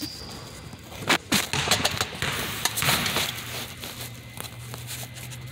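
Handling noise from a phone being moved and set up: a few sharp knocks about a second in, then a scraping rustle, over a low steady hum.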